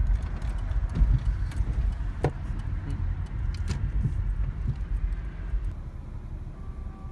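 Car driving slowly, heard from inside the cabin: a steady low rumble of engine and tyres, with a few light clicks and knocks.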